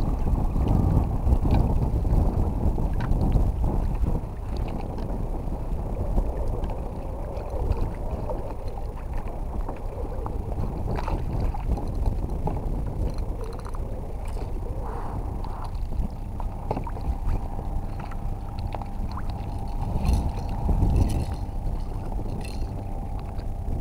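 Wind rumbling on the microphone out on a kayak, steady throughout, with a few light knocks along the way.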